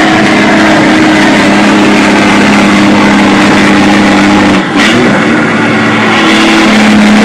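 Caterpillar diesel semi-truck engines running hard at highway speed, a loud, steady drone. The drone briefly dips and wavers about two-thirds of the way through, then carries on.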